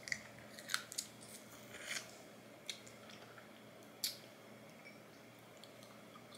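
Soft, scattered clicks and crackles of someone eating snow crab: shell being cracked and chewed, a handful of short sharp snaps with the sharpest about four seconds in.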